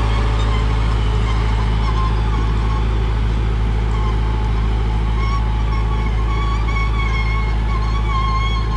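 Preet 6049 Agritrac tractor's diesel engine running steadily under load, pulling a disc harrow through dry soil. A thin wavering high tone joins about halfway through.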